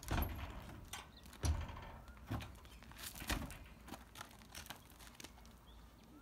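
A horse's hooves clunking on a horse float's wooden ramp as she backs down it: several heavy thuds about a second apart, followed by softer steps.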